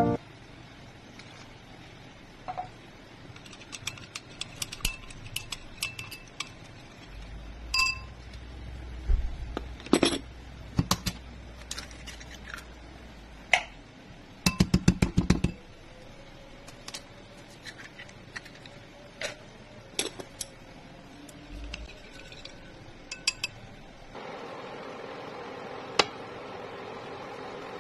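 Clinks and taps of a utensil against a glass mixing bowl as ingredients are mixed in it, with a quick run of taps about halfway through. Near the end a steady hum sets in, with one sharp click.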